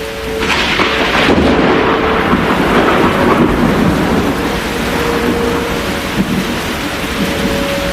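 A thunderclap breaks about half a second in and rumbles on for several seconds over steady rain. A faint synthesized Whelen-style tornado siren tone wavers in and out underneath.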